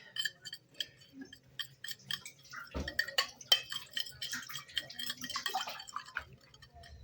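Dishes and utensils being handled: a run of light clinks and taps, with one heavier knock about three seconds in.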